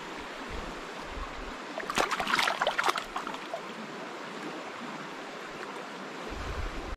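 Small stream running steadily, with a burst of splashing about two seconds in as a trout is released by hand from a landing net into the shallow water.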